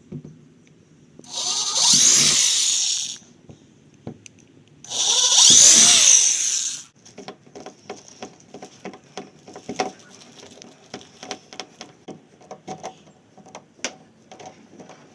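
Corded electric drill boring screw holes through a plastic kayak deck, in two runs of about two seconds each, the second louder. Then a long series of small, irregular clicks and creaks as screws are driven in by hand with a screwdriver.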